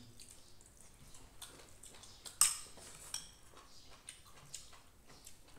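Metal spoons clinking and scraping against ceramic plates and bowls during a meal, a scatter of small clicks with one sharper ringing clink about two and a half seconds in.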